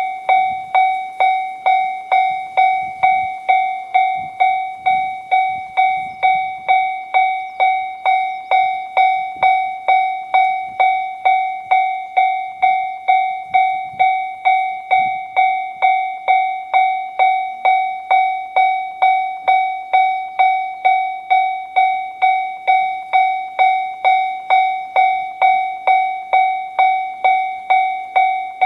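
Japanese level-crossing electronic warning bell with the JR standard tone, ringing in a steady, even rhythm of decaying dings. It signals that the crossing is active, with a train approaching or passing.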